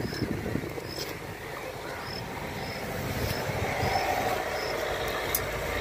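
A steady low rumble, like an engine running, that gets a little louder about halfway through, with short high chirps repeating every second or so.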